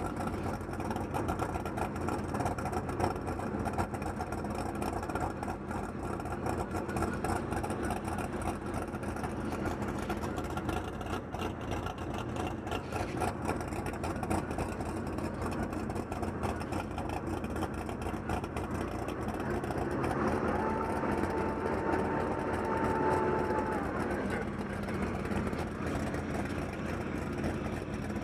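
Sherp ATV's diesel engine running steadily. About two-thirds of the way through, a higher steady whining tone joins in for a few seconds and then fades out.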